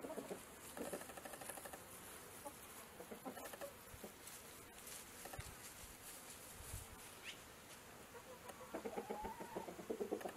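Chickens clucking in a flock, the clucks growing louder and busier near the end, with one drawn-out call just before.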